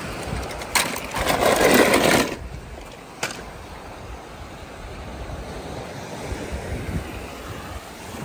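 A loud rush of water about a second in, lasting just over a second, with sharp clicks before and after it, over a steady wind-like noise on the microphone.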